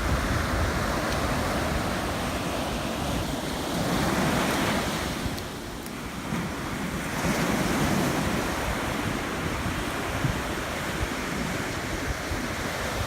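Ocean surf washing on a beach, with wind on the microphone; the wash swells twice, about four and eight seconds in, with a short lull between.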